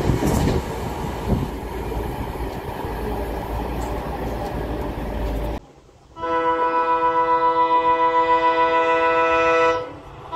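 Train coaches running past at speed, a dense rushing rumble, for about the first five and a half seconds. Then it cuts off abruptly, and an approaching locomotive sounds a long steady multi-tone horn for about three and a half seconds, with a short second blast at the very end.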